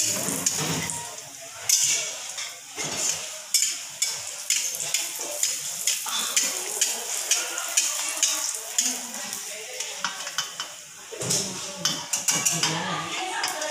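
Oil sizzling in a steel wok as a round disc of batter fries, with a metal spatula clicking and scraping against the wok again and again.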